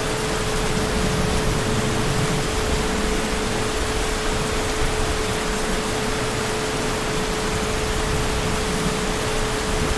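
Heavy rain falling as a steady, even hiss, with a faint constant pitched hum running underneath.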